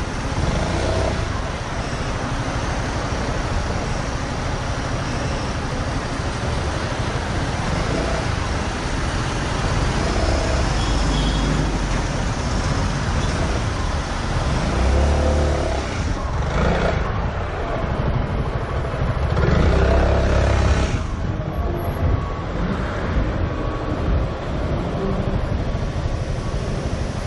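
Road traffic noise from a motor scooter moving slowly through city traffic: the steady run of engines close by, with louder low rumbles about 15 and 20 seconds in.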